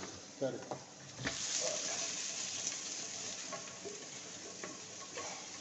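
Food sizzling in a hot frying pan: a knock about a second in, then a steady sizzling hiss with a few light clicks.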